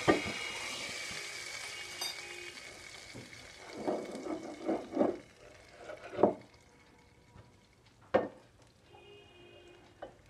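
Hot ghee tadka with spices sizzling in the dal in a steel pressure cooker, the hiss dying away over the first couple of seconds. Then the dal is stirred, with scraping sounds and a few sharp knocks against the pot.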